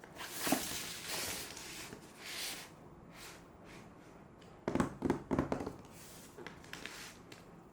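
Hands handling product packaging: rustling and sliding early on, then a quick run of knocks and taps about five seconds in, followed by a few light ticks.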